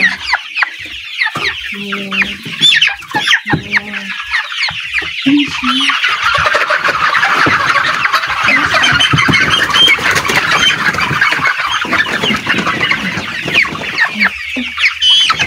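A flock of young chickens peeping and clucking: scattered short falling peeps at first, then a dense chorus of calls from about five seconds in that thins out near the end.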